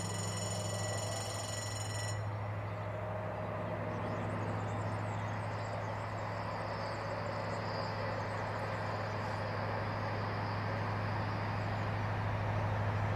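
Diesel locomotive hauling a passenger train, heard from afar as a steady low engine drone that grows slowly louder as the train approaches.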